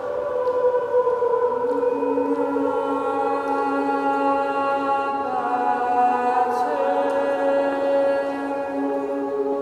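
Slow music of long, overlapping held notes, chant-like, with the notes shifting to new pitches every few seconds.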